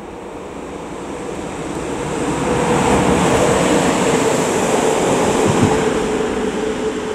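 Class 143 electric locomotive running light, passing close at speed. The rush of wheels on rail and a steady hum swell to a peak midway, then fade as it runs away.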